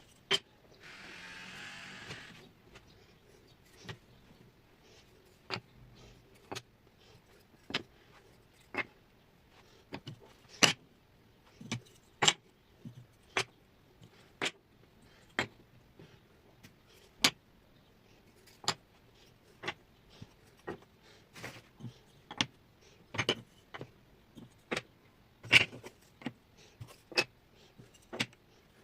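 A long run of sharp single knocks, about one a second at uneven spacing, from fixing wooden wall panels in place. A brief hiss comes about a second in.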